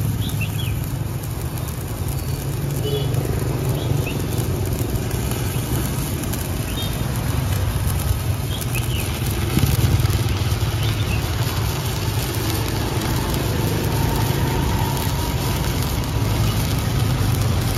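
Stick-welding arc from a Classic ZX7-200CL inverter welder, crackling and sizzling steadily as the electrode burns a continuous bead along a steel bar, with a low hum underneath.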